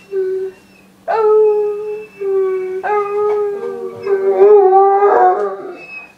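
Irish Wolfhound howling in long drawn-out calls. A short howl comes first, then two long ones from about a second in, the last growing louder before it fades. This is his greeting 'song' when family come home.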